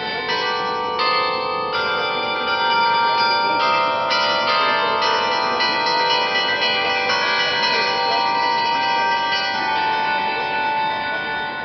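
Church bells ringing, a new stroke every half second to a second. Each bell's tone keeps sounding under the next, so the strokes overlap.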